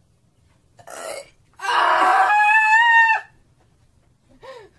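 A young woman's loud, silly vocal shriek, raspy at first and then a high, held squeal with a slight rise, lasting about a second and a half. A shorter vocal noise comes before it, and a brief falling laugh-like sound follows near the end.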